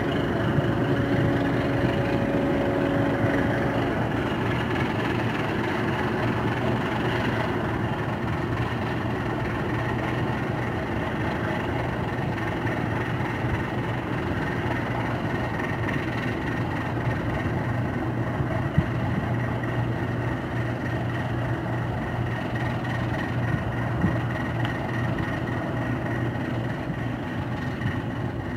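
Purse-seine fishing boat's diesel engine running with a steady low hum as the boat pulls away from the quay. A second, higher engine tone fades out about four seconds in.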